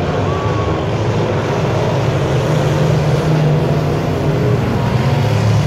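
Engines of a field of dirt-track stock cars racing around the oval, a steady, loud mix of engines at speed.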